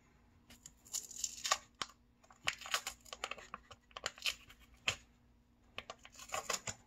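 Seal on an ice cream pint being peeled off by hand: irregular crinkling and tearing crackles in short clusters, starting about half a second in.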